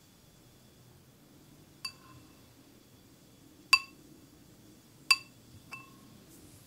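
Bamboo tea scoop (chashaku) tapped four times on the rim of a green Oribe-glazed ceramic tea bowl, knocking the last matcha powder off the scoop. Each tap is a sharp clink with a brief ringing note from the bowl; the middle two are loudest and the last two come close together.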